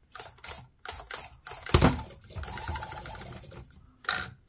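Axial SCX24 Jeep Gladiator 1/24-scale RC crawler's stock motor and small gears whirring in short stop-start bursts of throttle, with a sharp knock just under two seconds in. A steadier run follows, then one more short burst near the end.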